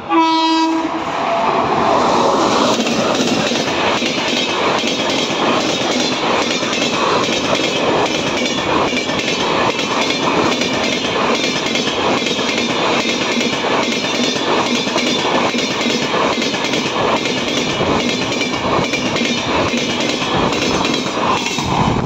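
Short electric locomotive horn blast of about a second, then a WAP7-hauled express train's coaches running through at speed. The wheels clatter over the rail joints and the wing rails of the points in a steady, repeating rhythm under a continuous rush of passing-train noise.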